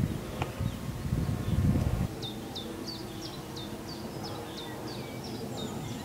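Low rumbling with a couple of knocks during the first two seconds, from the camera being moved. Then a small bird sings a fast run of short, high chirps, about three a second.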